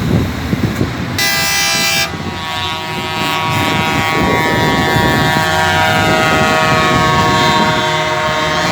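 Truck air horns: a short blast about a second in, then a long chord of several notes held to the end, over a low rumble of truck engines.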